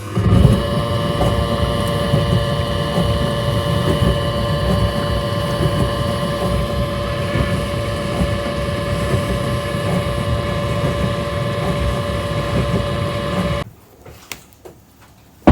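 Panasonic dishwasher running with a steady groaning hum, several held tones over a churning low rumble, that cuts off suddenly near the end: the abnormal groaning noise the 11-year-old machine has suddenly started making.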